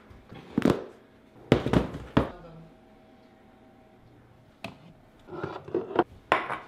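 Jars and containers being set down on a granite countertop: four sharp knocks in the first couple of seconds, then more knocks and clatter near the end.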